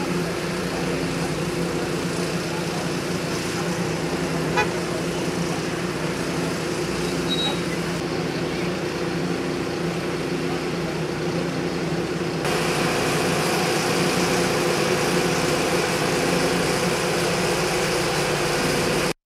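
Fire engine idling, a steady low hum of even pitch, with a short click about four and a half seconds in. It gets louder about twelve seconds in and cuts off abruptly just before the end.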